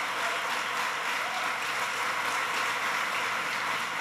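Audience applauding steadily, a dense even clatter of many hands.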